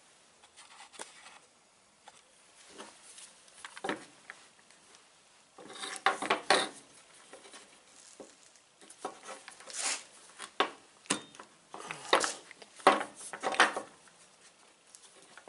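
Starter solenoid being worked apart by hand: the cap and housing scraping and clicking against each other in irregular bursts, louder from about six seconds in.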